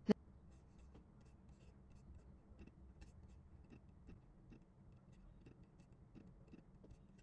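Faint, irregular clicking of a computer mouse, a few clicks each second, with one sharper click at the very start, over quiet room tone.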